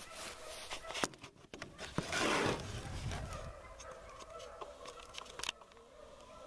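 Beagles baying faintly in the distance, a wavering howling pack voice that runs on through the second half, with a loud rustling rush about two seconds in and a few knocks of the camera being handled.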